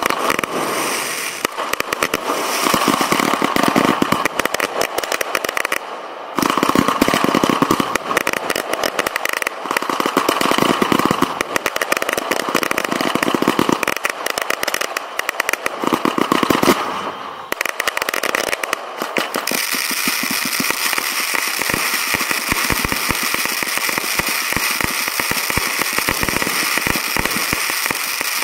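Professional firework display heard from the launch site: a dense, rapid barrage of shells and cakes firing and bursting, with swells of hiss between the bangs. After about two-thirds of the way through it gives way to a steadier hiss from a ground fountain spraying sparks, with scattered crackles over it.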